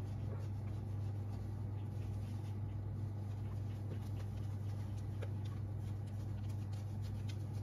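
Thick chocolate sponge batter pouring slowly from a glass bowl into a metal springform pan, with faint soft pats and small clicks over a steady low hum.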